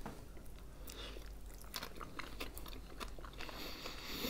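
People chewing khinkali dumplings close to the microphone: soft, wet mouth clicks and smacks, many small ones scattered through the stretch.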